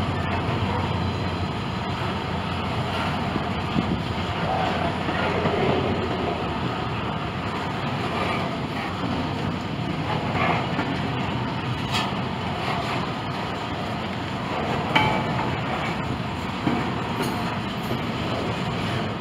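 Double-stack intermodal freight train rolling past: a steady rumble and rattle of the well cars' wheels on the rails, with a few brief high squeals.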